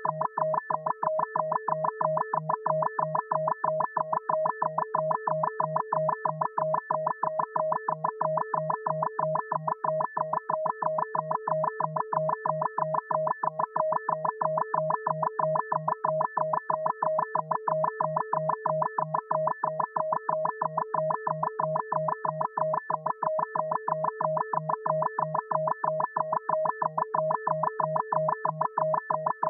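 Synthesised FM beep sound effect: short electronic beeps repeating in a fast, even rhythm at a steady level, each beep a bright multi-pitched tone.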